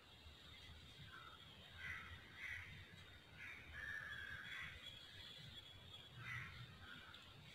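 Faint crows cawing in the background, several short separate calls scattered through, over a low steady room noise.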